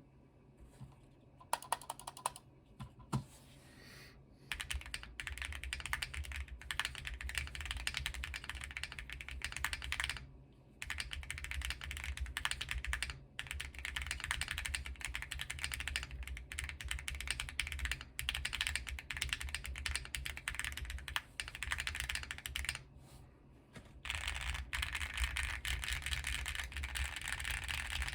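Typing on a QK75 plateless mechanical keyboard with lubed Azure Dragon linear switches and nPBT keycaps. A few separate keystrokes, then fast continuous typing broken by two short pauses.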